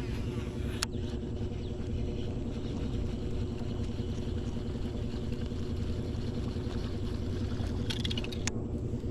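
A boat's motor running steadily, with a low, even drone. A few sharp clicks sound over it about a second in and again near the end.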